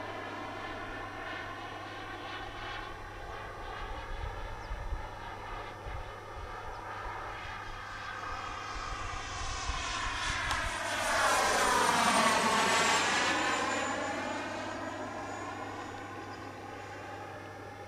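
Turbine engine of a radio-controlled F-16 model jet flying by: a steady jet whine that grows louder and peaks about eleven to thirteen seconds in, its tone sweeping down and back up as the plane passes, then fading as it flies away.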